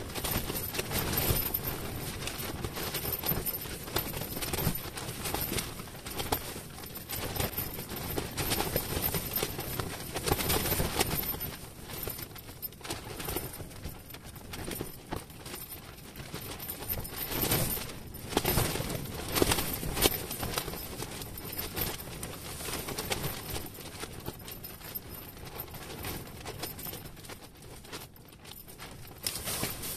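Fabric of an ice-fishing tent rustling and flapping in gusty wind, with irregular knocks and crackles.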